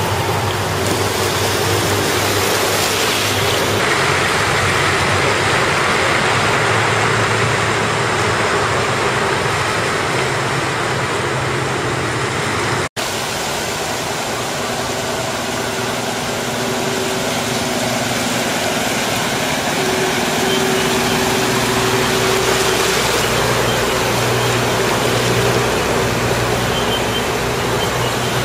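Road vehicles, a bus, pickups and cars, driving through floodwater on a street: engines running with water rushing and splashing around the wheels. The sound cuts out for an instant about halfway through.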